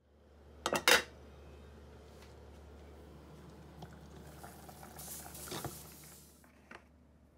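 Stainless steel pot boiling under a glass lid: two sharp clinks of the lid about a second in, then steady bubbling, with a louder hiss of steam and a knock of the lid as it is lifted about two thirds of the way through.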